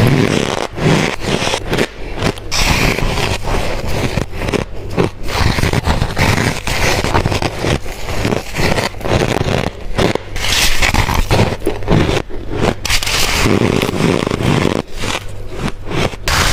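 Close-miked bites into squeaky, crunchy ice: a rapid, continuous run of crisp crunches and scrapes as the ice cracks between the teeth.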